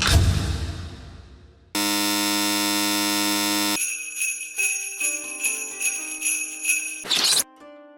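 A run of short anime-style sound effects: a sudden hit that fades away over a second or so, then a steady held chord-like tone for about two seconds, then a jingling, bell-like sparkle, and a brief whoosh near the end.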